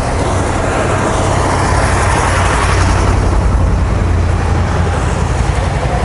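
Road traffic on a village street: a motor vehicle's engine and tyres making a loud, steady low rumble that swells a little in the middle.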